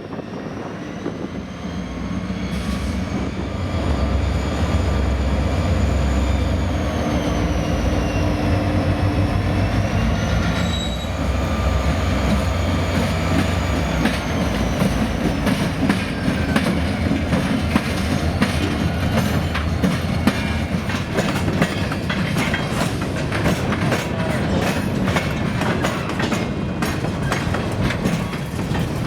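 Freight train passing: a diesel locomotive's heavy rumble and a high, thin whine that wavers in pitch fill the first half. Then comes a continuous rapid clickety-clack of freight car wheels over the track.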